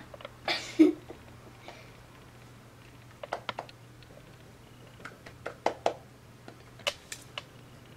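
Light clicking and tapping in short clusters as a cat steps and paws on a dresser top beside a plastic hamster cage, with a louder thump about half a second in.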